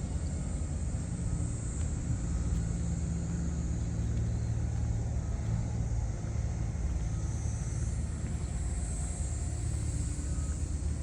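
Rice combine harvester's engine running steadily with a low, even rumble.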